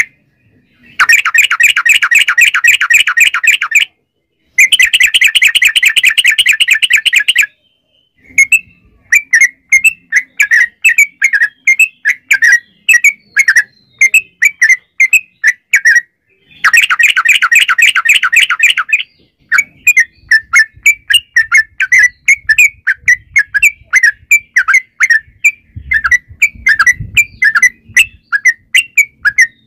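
Yellow-vented bulbul singing: long, very rapid trills ("ropel") about a second in, at about four and a half seconds and again around the middle, with strings of short, sharp chattering notes between them.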